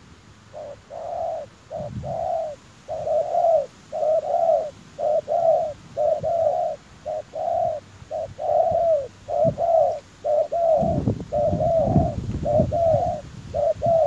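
Spotted doves cooing: a long, rapid run of short, down-curving coo notes, about two a second. A low rumble joins about eleven seconds in.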